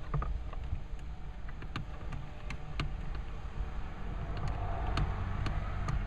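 Phillips screwdriver driving the mounting screws into a windshield wiper switch on a steering column: scattered small clicks and ticks of the screwdriver and screws against the plastic switch housing, over a low steady rumble.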